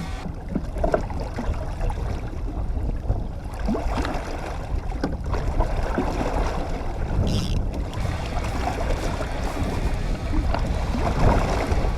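Fishing boat trolling on open water: steady low rumble of the motor and water against the hull, with wind buffeting the microphone.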